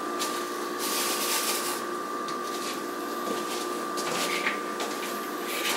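A steady mechanical hum with a constant high whine and a hiss over it, with a few faint ticks.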